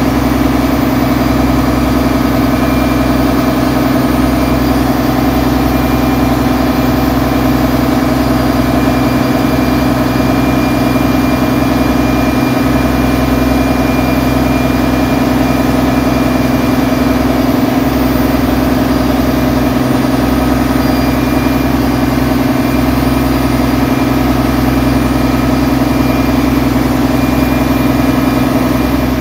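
Boat engine running steadily at constant speed, heard loud from on board.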